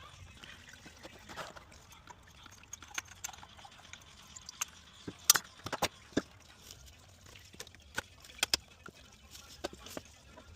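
Irregular light clicks and taps of hand-tool work on the car's transmission, the loudest cluster a little over five seconds in.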